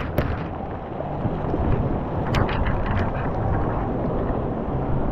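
Water sloshing and washing right against a camera held at the surface of a shallow pool: a steady churning rush on the microphone, with a few brief sharper splashes.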